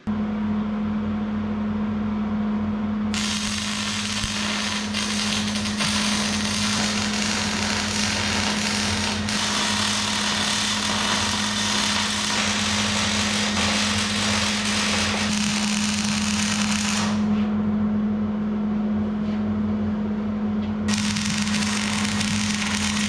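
Wire-feed welder's arc crackling and sizzling as beads are laid welding a truss onto a steel rear-axle tube. One long run of about fourteen seconds starts a few seconds in, stops, and a second run starts near the end, over a steady low hum.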